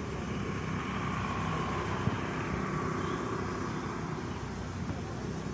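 Street traffic ambience: vehicle engines running steadily, with a single sharp click about two seconds in.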